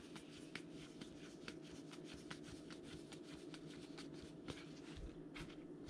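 Faint clicks and rustles of baseball trading cards being flipped one after another through the hands, a few a second, over a faint steady hum.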